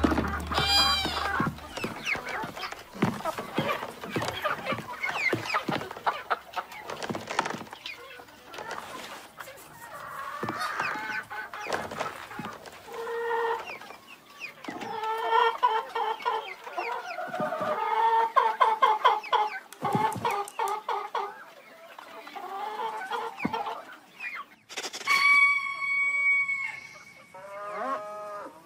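Many hens clucking and squawking over one another in a hen house, the calls busy and overlapping, with a long held call near the end.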